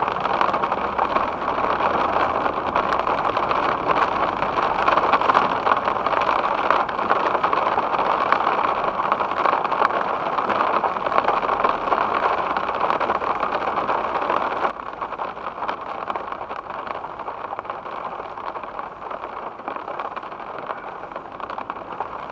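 Heavy water noise on a moving car, heard from inside: rain and spray off the wet, flooded road hitting the body and windscreen as a dense hiss. About fifteen seconds in it drops suddenly to a lighter crackling patter.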